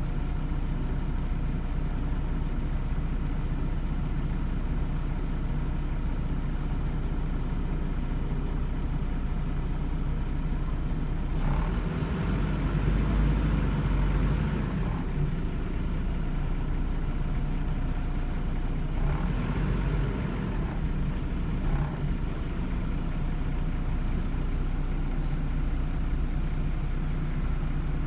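MAN 14.240 Alexander Dennis Enviro200 bus's six-cylinder diesel engine running, heard from inside the passenger saloon. It is louder and noisier for a few seconds around the middle, with a couple of short hiss-like bursts later on.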